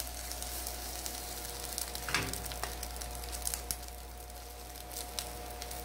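Egg omelette sizzling in a hot non-stick frying pan while a spatula and spoon fold it over, with light utensil clicks against the pan and one louder knock about two seconds in.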